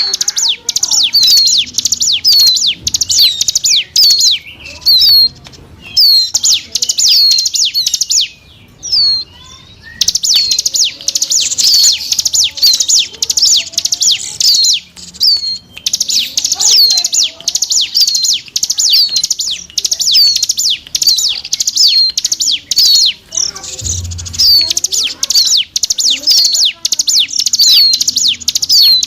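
Ciblek gunung (a prinia) calling in a lure recording: a rapid, continuous string of sharp, high chirps, several a second, broken by a couple of short pauses.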